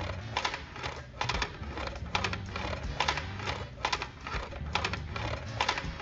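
Background music with a rhythmic clicking beat, about two to three clicks a second, over a stepping bass line.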